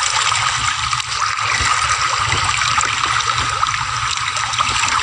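Steady rush of fast-flowing floodwater, an even noise without pauses.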